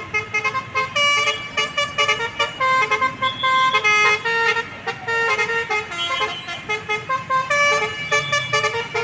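Bus basuri musical horn playing a quick melody, one pitched horn note after another.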